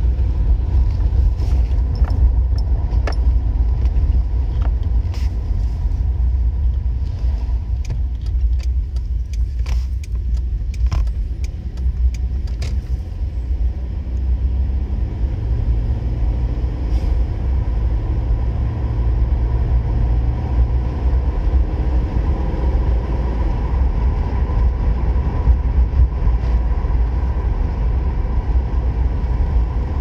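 In-cabin driving noise of a Suzuki Grand Vitara: a steady low engine and road rumble, with light rattling clicks through the first half. In the second half the engine note climbs as the car accelerates.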